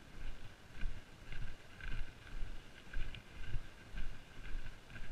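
A hiker walking at a steady pace on a muddy forest path: footsteps and trekking-pole strikes, about two a second.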